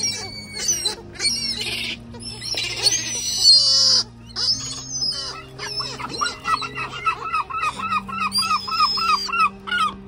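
Gulls and hooded crows calling, with harsh squeals in the first half and an evenly repeated run of calls, about three a second, in the second half. Soft background music with held chords plays underneath.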